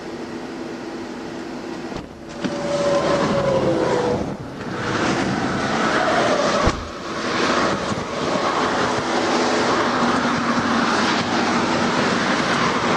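Highway traffic passing at speed, mostly tyre and road noise, which grows louder about two seconds in, with a faint falling tone as one vehicle goes by. A single thump comes near the middle.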